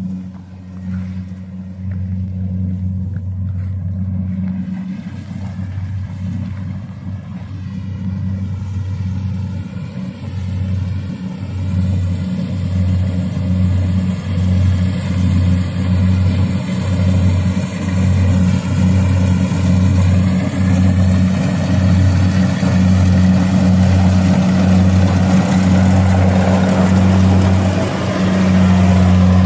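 Kubota rice combine harvester running under load while harvesting, a steady low engine hum that pulses about one and a half times a second from partway through, growing louder near the end as the machine comes close.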